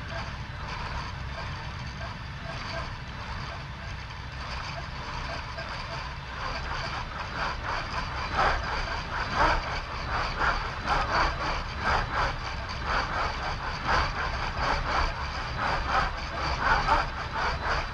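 Six-axis motion simulator's machinery running: a steady low hum, joined from about seven seconds in by a quick, irregular series of higher pulses, a couple each second, as the platform's actuators work.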